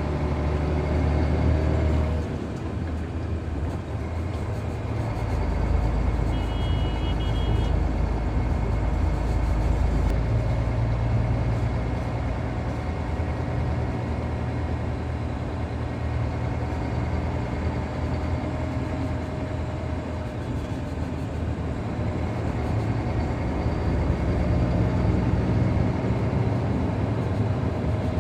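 Heavy diesel engine of a long-boom excavator running, its pitch and load rising and falling as it works. A short high beep sounds about six and a half seconds in.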